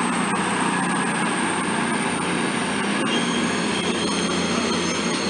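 CrossCountry Class 220 Voyager diesel multiple unit running past along the platform: a steady rumble of its underfloor diesel engines and wheels on the rails. Thin high-pitched squealing joins in about three seconds in.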